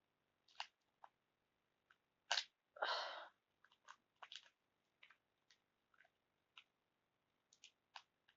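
Plastic instant-ramen packaging crinkling in short, faint crackles as it is pulled at and fails to tear open, with a louder rustling burst about two and a half to three seconds in.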